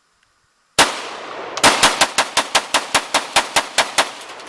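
AK-pattern rifle in 7.62×39 fired rapid-fire: a single shot, then a quick string of about fourteen shots at roughly five a second, each with an echoing tail.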